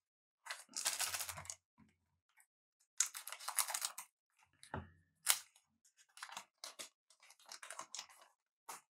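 Trading cards and a pack wrapper being handled: several short bursts of rustling and scraping, with two sharp clicks about five seconds in.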